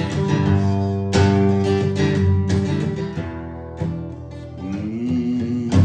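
Acoustic guitar strumming: several chords struck about a second or two apart, each left to ring.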